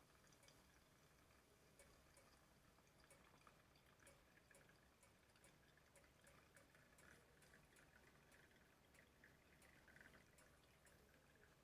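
Very faint trickling and dripping of hot water being poured over ground coffee in a pour-over coffee maker, with scattered light drip ticks.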